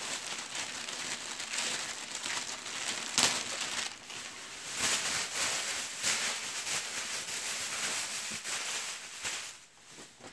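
Crinkly gift wrapping being crumpled and pulled open by hand, with an irregular crackle that pauses briefly near the end.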